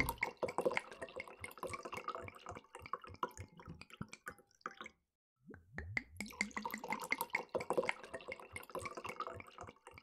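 Water dripping and trickling: many small, irregular drops with little pitched plinks, cutting out completely for a moment about halfway through before resuming.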